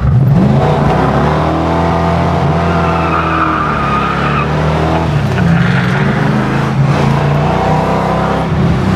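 The big-block V8 of a 1969 Dodge Charger General Lee replica, heard from the car under way, pulling hard. The engine note rises and falls twice. A brief high squeal comes about three seconds in.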